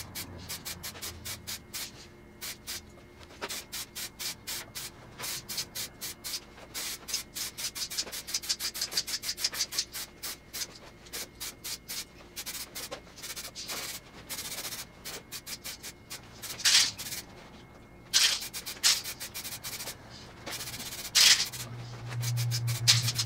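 A DuraBlue two-part aerosol spray can being shaken hard, its mixing ball rattling inside in fast runs of several shakes a second, with a few longer, louder strokes near the end. The shaking mixes the coating before the next coat is sprayed on.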